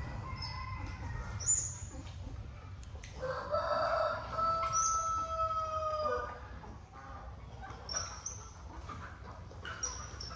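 A rooster crowing once, a long held call of about three seconds starting a few seconds in, with short high chirps from small birds around it.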